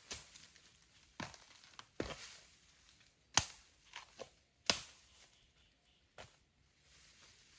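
Bamboo shoots being handled: about nine short, sharp cracking and tearing sounds spaced irregularly, the loudest about three and a half and nearly five seconds in.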